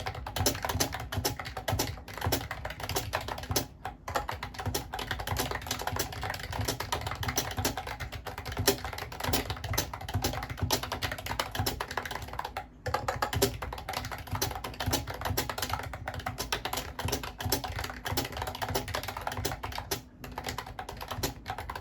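Typing on a Mofii Candy wireless keyboard: a fast, continuous run of key clicks, with brief pauses about 4, 13 and 20 seconds in.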